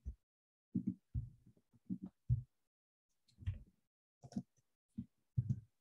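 Typing on a computer keyboard: about a dozen soft, irregular keystroke taps with short gaps between them.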